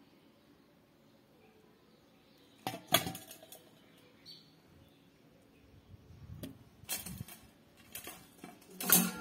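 Stainless steel kitchenware being handled, with sharp metallic knocks and clinks: a loud one about three seconds in, a few more around seven seconds, and another loud one near the end.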